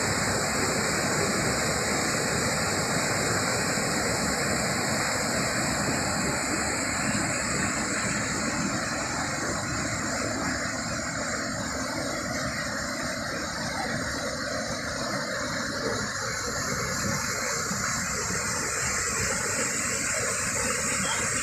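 Shallow rocky stream rushing over stones and small cascades: a steady, even rush of water.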